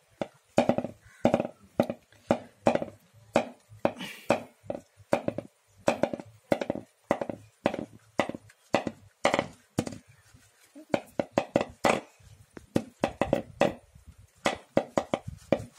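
Wet slapping and squelching of a hand scrubbing soap lather into a dog's wet coat: quick, irregular strokes, a few a second, with a short lull a little past the middle.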